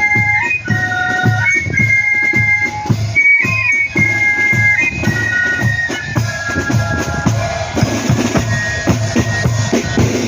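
Marching band of flutes and drums playing a tune, with a steady regular drumbeat under a high flute melody. About two-thirds of the way in the melody stops and the drums carry on alone.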